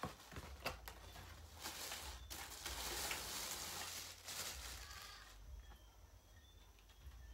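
Clear plastic wrapping crinkling and rustling as a ring light is pulled out of its bag, with a few light knocks from handling the box; the rustling dies away after about five seconds.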